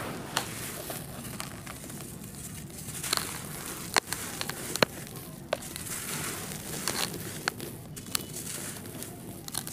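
Dry powdery red dirt crumbled in the hands and poured back through the fingers onto loose dirt in a plastic tub: a soft gritty hiss with scattered sharp crackles as small clumps break.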